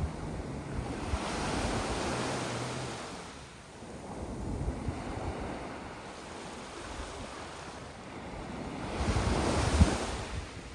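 Sea waves washing onto a beach of sand and small pebbles, with one surge in the first few seconds and another, louder one near the end. Wind rumbles on the microphone.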